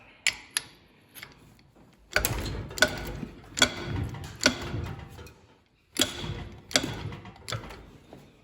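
Metal clicks and scraping of hand tools working a Whitworth nut on the engine's rocker gear, which is rusty from having no tappet cover. A few single clicks come first, then two runs of clicks, each click under a second apart.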